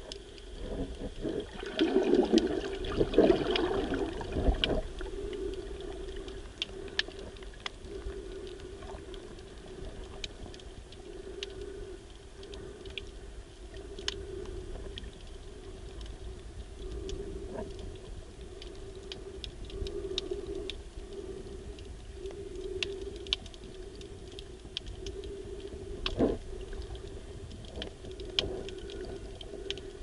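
Underwater sound picked up by a camera filming the seabed: scattered sharp clicks and crackles over a low hum that swells and fades about every second and a half, with a louder rushing stretch about two seconds in.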